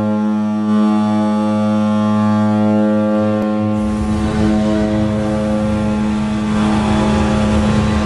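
Ice hockey arena goal horn sounding one long, steady low blast. About four seconds in, a rougher, noisy sound joins it while the horn keeps going.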